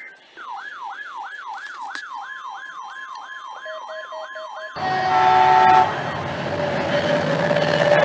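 Electronic siren in a fast yelp, its pitch sweeping up and down about two and a half times a second, with a few short beeps near the end. It cuts off abruptly into a loud train horn blast of about a second, followed by a diesel-hauled passenger train running past.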